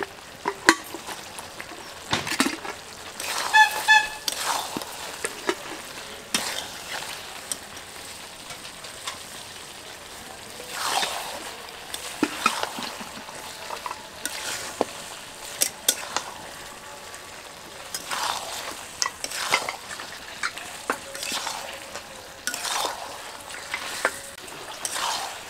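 Mutton curry and fried potatoes sizzling in a metal kadai while a spatula stirs and scrapes through them in repeated strokes. There is a short metallic ring about four seconds in.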